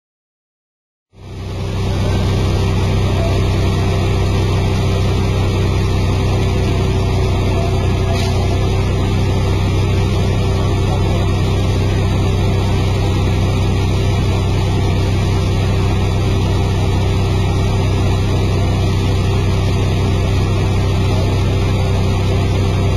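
Film-set rain machine running: a steady low machine drone under the even hiss of water spraying down as artificial rain. It starts abruptly about a second in and stays unchanged.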